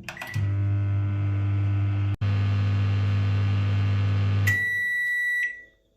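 Microwave oven running with a steady low hum after a short keypad beep, cutting out for an instant about two seconds in. About four and a half seconds in the hum stops and a single long high beep sounds, the signal that the cooking cycle has finished.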